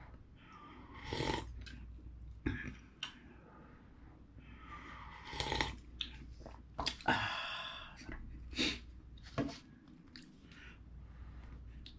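A person eating instant ramen noodles from a cup with chopsticks: a string of short slurps, about eight in all, with chewing between them.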